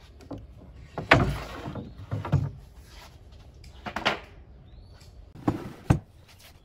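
Wooden knocks and bumps as wooden frame pieces and a plank panel are handled and set down on a wooden workbench: about five knocks, the loudest about a second in and two close together near the end.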